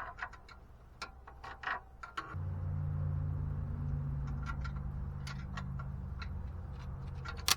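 Sharp metallic clicks of a wrench working a starter bolt, then about two seconds in a steady low hum sets in. Near the end comes a single sharp snap, most likely a spark as the tool shorts against a live cable because the battery is still connected.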